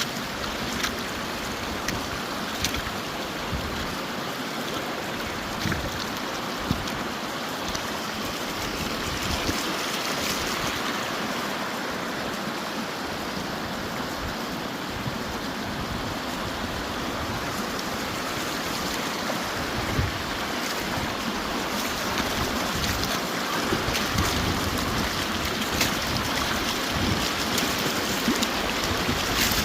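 Rivière du Moulin running low and shallow over its bed, a steady rush of water, with wind buffeting the microphone. It grows a little louder in the last third.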